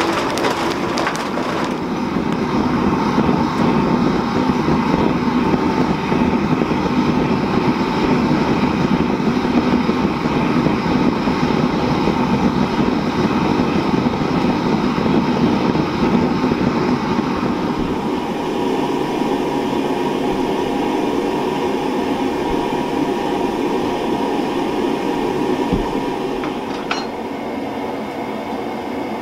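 A forge fire burning with a continuous rushing, crackling noise that thins and drops a little about two-thirds of the way through. A couple of light knocks near the end.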